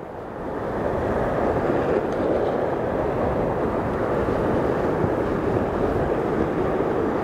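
Surf breaking against a rocky shore: a steady rushing roar that builds over the first second.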